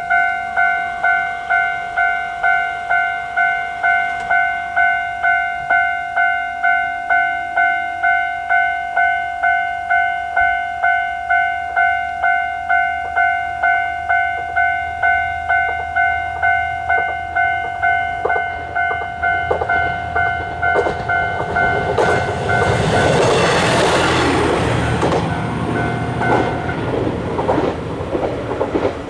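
Japanese level-crossing warning bell ringing its pulsing two-tone 'kan-kan' about one and a half times a second. Near the end a Matsuura Railway diesel railcar passes over the crossing, its wheels clacking over the rail joints, and the bell stops as the train goes by.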